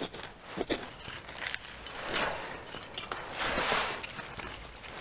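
Campfire embers and sticks being shifted by hand: a few sharp cracks and clicks, then two short rustling swells.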